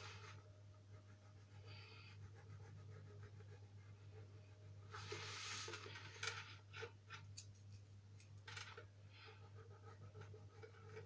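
Faint scratching of a colouring pen on paper as lines are drawn, with a longer stroke about halfway through and a few light ticks, over a steady low hum.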